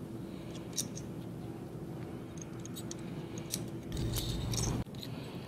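Light metallic clicks and clinks of steel nuts and lock washers being fitted onto the actuator's mounting studs, over a steady low hum.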